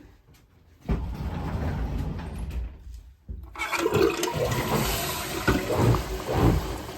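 Newly installed macerating toilet being flushed: a low rush of water starts about a second in, then swells into a louder, fuller rush about halfway through.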